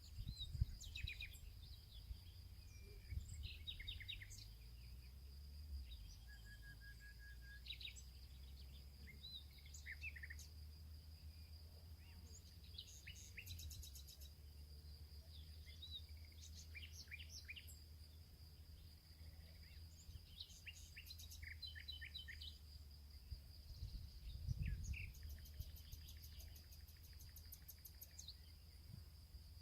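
Faint birdsong: many short chirps and trills from several birds, over a steady high whine and a low rumble.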